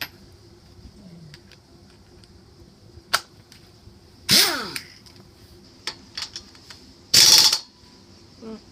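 Two short, loud bursts of rapid mechanical rattling, about three seconds apart, with a single sharp click before them; the first burst trails off with a falling whine.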